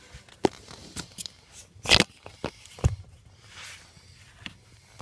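Scattered knocks and clicks of someone moving about and handling things, the loudest about two seconds in, with a brief soft hiss a little past the middle.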